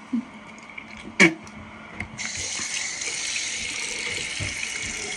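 Bath tap turned on about two seconds in, water running steadily into the tub. A short, sharp bump about a second in is the loudest moment.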